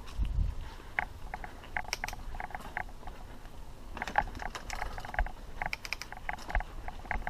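Mountain bike on a dirt trail: irregular light clicking and rattling, with a low rumble and a few dull thumps from the ride.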